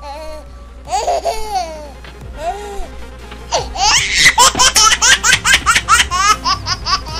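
A baby laughing: a few high drawn-out sounds at first, then from about three and a half seconds in a fast run of short giggles, about six a second, over background music.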